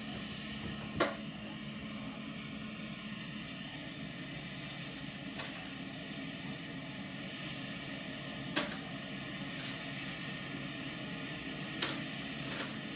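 Case IH 9240 Axial-Flow combine harvester running steadily, a constant machine hum and noise, with a few sharp clicks or knocks: one about a second in, and two more in the last few seconds.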